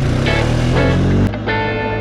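Music with repeated plucked guitar notes, over a low engine drone that stops abruptly about a second in; after that the guitar music plays on its own.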